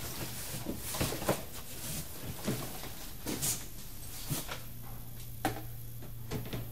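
Rummaging through cardboard boxes and stored belongings: scattered rustles, knocks and clunks at irregular moments, over a steady low hum.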